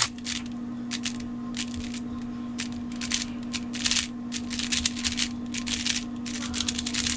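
Giiker Super Cube, a smart 3x3 puzzle cube, being turned quickly through a solve: its plastic layers click and clack in fast irregular runs of turns, over a steady low hum.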